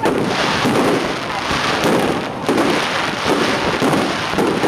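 Fireworks display: a dense, continuous barrage of bursts and crackles with no pauses.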